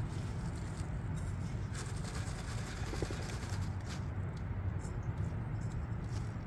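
Small 1/18-scale RC rock crawler with a brushed 370 motor driving slowly over rock: a steady low drivetrain rumble, with the tyres scraping and a few sharp clicks.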